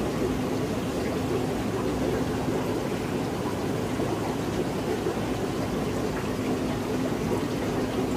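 Aquarium running water, a steady rushing and splashing with a faint low hum underneath.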